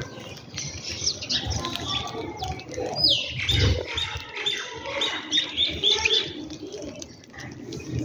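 House sparrows chirping, short high chirps that come in a quick run of about three a second in the middle, with a falling note about three seconds in. A few soft wing flaps from birds flying in and out among the feeding flock.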